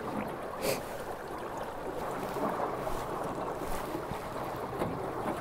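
Small aluminium fishing boat moving slowly across a lake: water swishing along the hull and wind on the microphone, under a faint, low, steady hum. One sharp click comes less than a second in.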